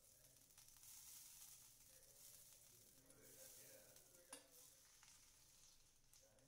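Butter faintly sizzling as it melts on a hot cast-iron griddle, pushed around with a fork; a sharp tap of the fork on the pan about four seconds in.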